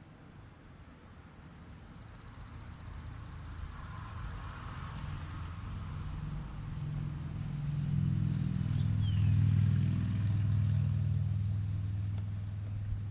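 A motor vehicle's engine passing by: a low rumble that builds steadily, is loudest about nine to ten seconds in, then begins to fade.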